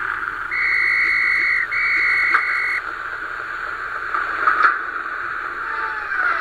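Flash cartoon soundtrack played through a computer speaker: a steady hiss with two long steady tones, each about a second, near the start, then a few short clicks.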